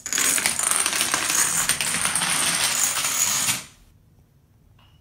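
A long chain of dominoes toppling one after another on a wooden floor, a rapid continuous clatter of small clicks. It stops abruptly after about three and a half seconds, when the last one falls.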